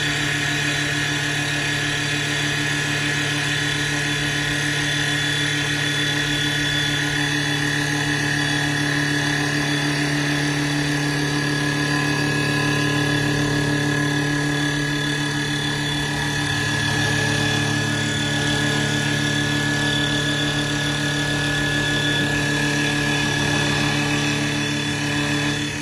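CNC wood lathe turning a wooden blank with its rotary planer cutter: a steady motor hum with a high, even whine over the hiss of wood being cut.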